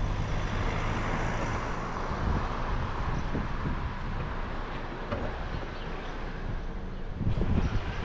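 Toyota RAV4 driving slowly: a steady low engine hum with tyre and road noise. Near the end, louder, irregular low rumbling sets in, like wind buffeting the microphone.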